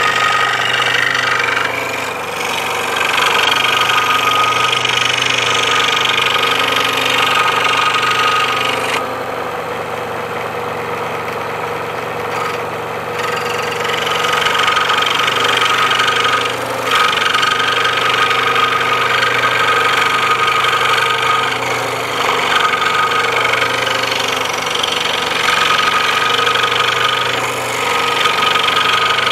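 Makita scroll saw running, its reciprocating blade cutting through painted plywood as the piece is guided by hand. The motor's hum and the blade's rasp are steady, with the cutting sound thinning for a few seconds about a third of the way in.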